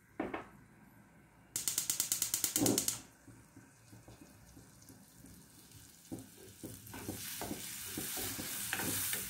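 A knock as a clay cup is set down, then a gas stove's igniter clicking rapidly for about a second and a half as the burner is relit. From about six seconds in, a steel ladle scrapes and knocks in a steel kadai while the watery spice masala begins to sizzle, the sizzle growing louder toward the end.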